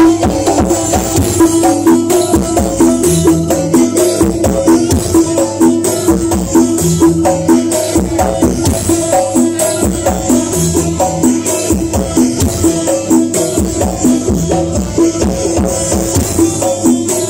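Loud music with a steady beat, percussion and heavy bass, played through a large truck-mounted sound system of stacked loudspeakers.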